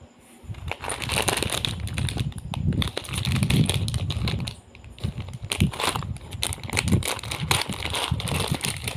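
Lego packaging being handled and opened: crinkling plastic and rustling with a dense run of small clicks, easing off briefly about halfway through.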